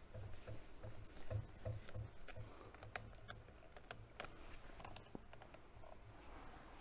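Faint scattered clicks and light taps of hands handling the plastic landing-gear leg and arm parts of a DJI Agras T40 spray drone.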